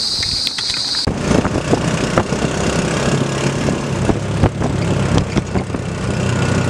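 Insects trilling steadily, cut off suddenly about a second in by the steady low drone of a vehicle's engine heard from inside the moving vehicle, with irregular rattles and knocks from its body.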